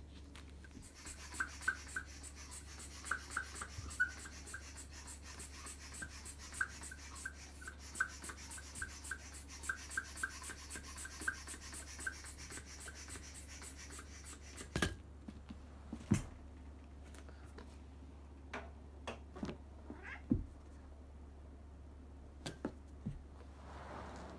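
Norwegian Forest Cat making a long, rapid run of clicking sounds for about fourteen seconds, which then stops abruptly, followed by a few scattered knocks.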